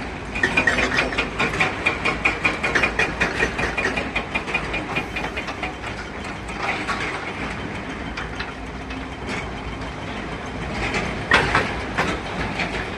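Machinery running with a steady rattling noise, opening with a few seconds of rapid metallic clattering and with one louder clatter near the end.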